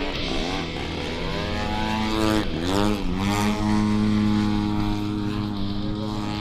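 Desert Aircraft DA-120 twin-cylinder two-stroke petrol engine of a giant-scale RC aerobatic plane, running cleanly through an aerobatic sequence. The engine note rises, drops sharply and climbs back about two and a half seconds in, then holds high and steady before dipping again at the end.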